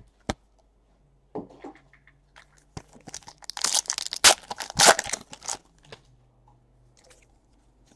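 Plastic packaging crinkling and tearing while trading cards are handled, with a sharp click near the start and the loudest crackling in the middle.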